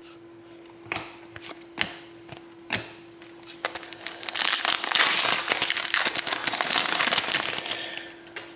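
Wrapper of a hockey card pack being torn open and crinkled: about four seconds of dense crackling in the second half, after a few light taps of cards being handled. A faint steady hum runs underneath.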